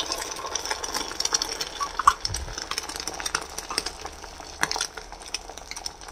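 Beaten egg with chopped onion frying in oil in a small steel pan: a steady sizzle with many small crackles. A sharp metallic clink stands out about two seconds in.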